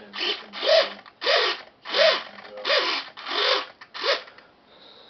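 RC servo driving the elevator of a foam model Thrush crop duster back and forth during a control-surface check: seven short whirs, each rising and then falling in pitch, about one and a half a second.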